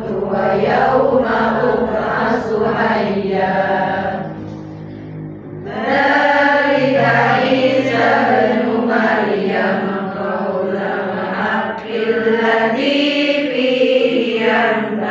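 Qur'an recitation chanted in long, ornamented melodic phrases, with a quieter pause about four seconds in before the chanting resumes at full level.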